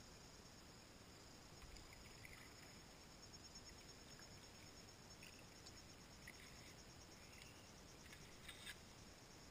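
Near silence with a faint, steady, high-pitched insect chorus, a few short faint chirps, and two soft knocks near the end.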